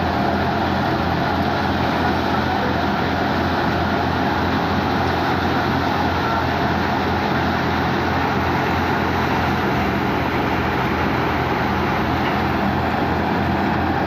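A motor runs steadily and loudly with a constant low hum and no change in pitch or load.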